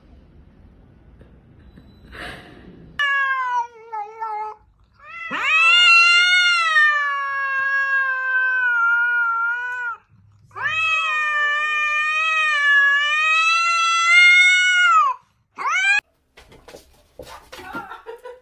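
Domestic cat yowling: a short call, then two long drawn-out yowls of about five seconds each, then a brief final cry.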